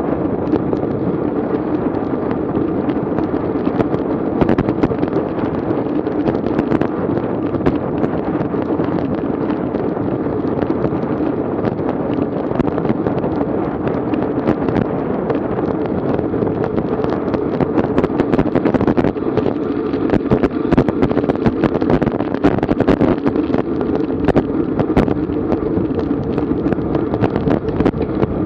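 Strong wind rushing over a bike-mounted action camera's microphone at racing speed, steady, with frequent crackles and pops from gusts buffeting the mic.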